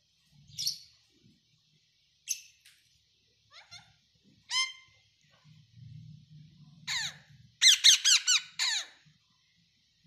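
Caged parakeets squawking: single harsh calls every second or so, then a louder quick run of about five squawks near the end.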